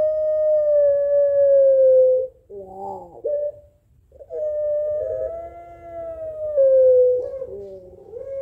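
Puter pelung doves, a long-calling breed of domestic dove, answering each other with long, drawn-out coos that sink slowly in pitch. One held call ends about two seconds in, a short wavering call comes around three seconds, and another long call starts about four seconds in, overlapped near the end by a second, lower voice.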